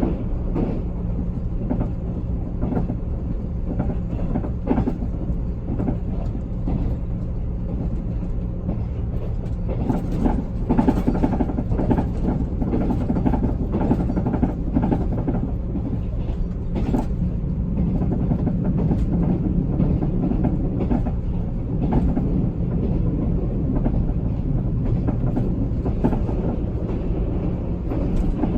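Abnormal noise from the wheels and running gear under a limited express passenger car in motion: a loud, steady rumble with frequent irregular knocks and clatter. The conductor puts the noise down to the train's age.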